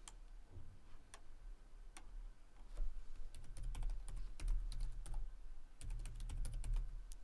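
Typing on a computer keyboard: a few separate clicks at first, then a quick run of keystrokes from about three seconds in.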